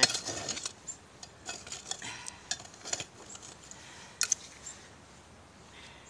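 Hand digging tool scraping and scratching through gravelly soil, with light clinks and ticks as it strikes stones and buried glass; a pair of sharper clinks about four seconds in.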